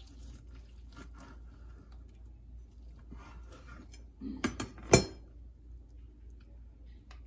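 Faint scraping and tapping as a chef's knife cuts the tip off a smoked brisket on a plastic cutting board, then a few sharp clacks between four and five seconds in, the loudest a single knock with a short ring as the metal knife is set down on the board.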